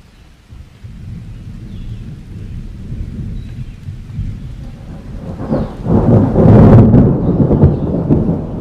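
A long rumble of thunder that builds over several seconds and is loudest about six to seven seconds in.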